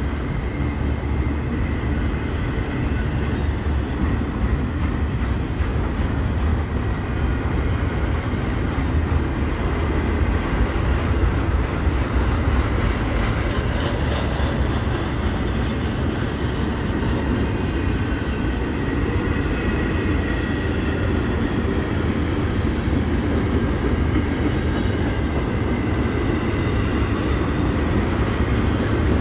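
Double-stack intermodal freight cars of a CSX train rolling slowly past on the rails: a steady low rumble of steel wheels on track.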